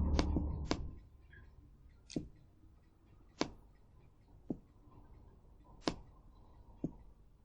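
Computer mouse clicking: about seven single, sharp clicks spaced irregularly. A low rumble fades out within the first second.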